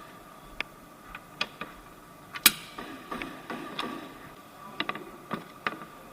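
Irregular clicks and clacks of hand tools and fasteners as the engine undershield is taken off, with one sharp loud clack about two and a half seconds in. A faint steady hum runs underneath.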